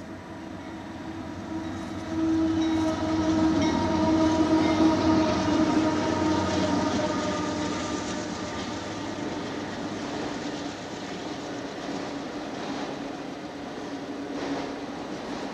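Union Pacific diesel locomotive's horn sounding from about two seconds in, a steady chord held for several seconds as the train approaches. It then gives way to the rumble of the locomotives and auto rack cars rolling past.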